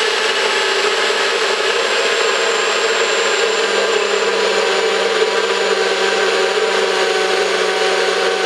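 Nutribullet 900W Pro Series blender motor running steadily at one speed, blending a smoothie; an even, loud whine that holds its pitch throughout.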